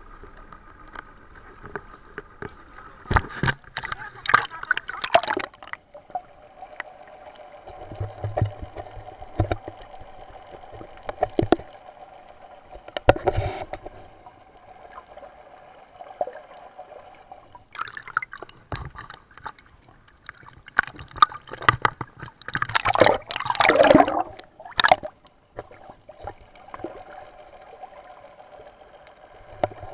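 Muffled sound from a camera under water: water gurgling and bubbling in several bursts, the longest near the end, over a faint steady hum.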